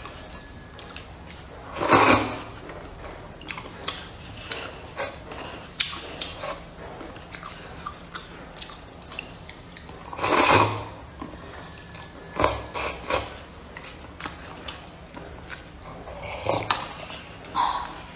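Loud slurping of hot and sour glass noodles from a paper cup: two long slurps, about two seconds in and again about halfway through, with shorter slurps, small clicks and mouth noises between.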